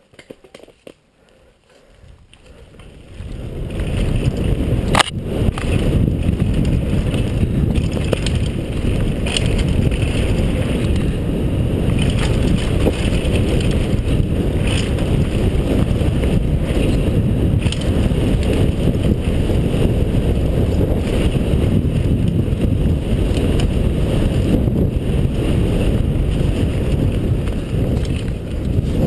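Foes downhill mountain bike rolling down a dirt forest trail: tyres rumbling and the bike rattling, with wind buffeting the helmet camera's microphone, building up over the first few seconds as it gathers speed. A sharp knock about five seconds in.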